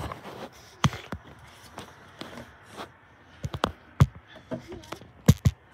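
Handling noise from a handheld phone camera pressed against the body and clothing while its holder moves: faint rubbing broken by irregular sharp knocks and thumps, the loudest about a second in and again twice near the end.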